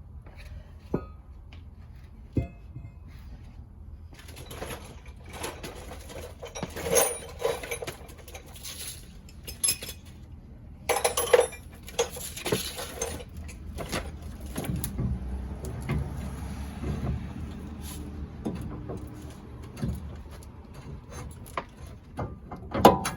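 Scattered metal clinks, knocks and scraping as the lower control arm's rear bushing is worked out of its slot at the torsion bar on a truck's front suspension, with a loud clank near the end, over a low steady hum.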